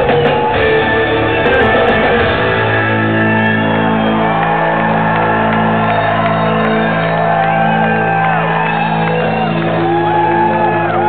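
Live rock band in a large hall: drums and cymbals crash with the full band for the first couple of seconds, then a chord is held and rings on while electric guitar notes bend up and down over it, the closing sustain of a song. The crowd shouts and whoops throughout.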